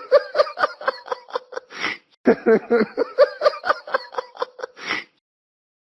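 Male laughter: quick repeated ha-ha pulses ending in a breathy gasp, a short pause, then a second run of the same laughter that stops abruptly about five seconds in.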